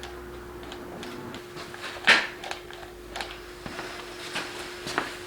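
Light clicks and knocks of hand-worked parts, with one louder scrape about two seconds in, over a faint steady hum.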